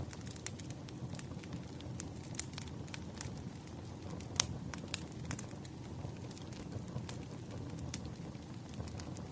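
Campfire burning: wood crackling with sharp, irregular pops over a low, steady rumble of flame, the loudest pop about four and a half seconds in.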